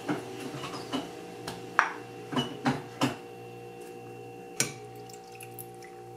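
Plastic rice paddle knocking and scraping against a glass bowl and a ceramic bowl while steamed rice is scooped out: a run of sharp knocks through the first three seconds and one more about four and a half seconds in. Soft background music with held tones plays underneath.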